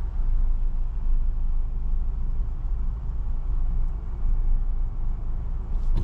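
Steady low rumble of a Ford car idling, heard from inside the cabin while the car stands still in traffic.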